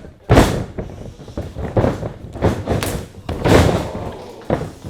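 Heavy thuds of wrestlers' bodies hitting the wrestling ring: a big impact about a third of a second in, several smaller knocks, and another big one around three and a half seconds in, each with a short rattling ring-out.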